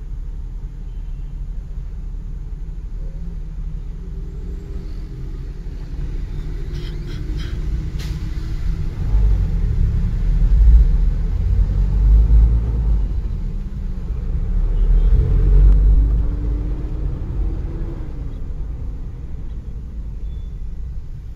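Low engine and road rumble inside a car's cabin as it creeps through stop-and-go traffic, swelling louder twice through the middle.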